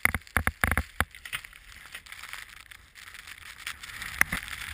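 Wind and snow noise on a moving camera's microphone during night skiing in a snowstorm, building up over the last couple of seconds. Several sharp knocks come in the first second and another about four seconds in.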